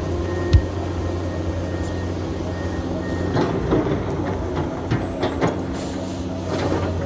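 Heavy diesel machinery running steadily at low revs, with scattered knocks and metallic clatter from about three seconds in.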